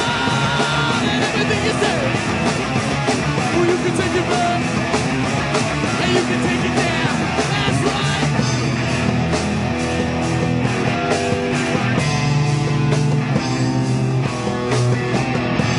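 Live rock band playing loud, driving rock on drum kit, electric guitar and electric bass, with cymbal and drum hits throughout.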